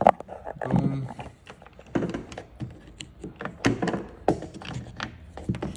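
Scattered sharp clicks and knocks of a pick tool and hands working the door handle and its trim on a car door, the loudest knock right at the start.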